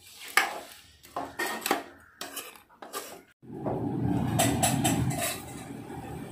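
A steel ladle stirring crab gravy in an aluminium kadai, scraping and clinking against the pan several times. About three and a half seconds in, the clinks stop and a steady low rumble takes over.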